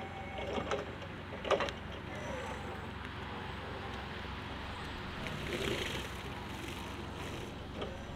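Linde E16L electric forklift driving past over block paving: a quiet steady run with tyre noise, loudest in the middle as it passes close, and a couple of knocks in the first two seconds.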